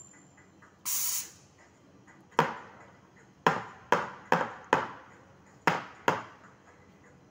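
A short hiss about a second in as the espresso machine's steam wand is purged. Then a stainless steel milk pitcher is knocked sharply on the counter seven times, the usual taps that burst large bubbles in steamed milk before pouring latte art.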